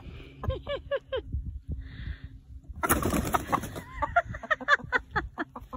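Domestic chickens clucking, then a sudden loud burst of squawking and cackling about three seconds in, the alarm calls of hens frightened by a kitten.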